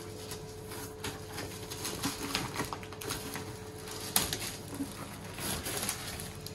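Plastic wrapping bag rustling and crinkling as it is torn open and pulled down off a portable power station, with one sharp crack about four seconds in.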